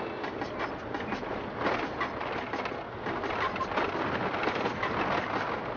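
Road noise inside an SUV's cabin driving on a rough unpaved road: tyres on gravel, with the body and interior rattling and knocking irregularly over the bumps.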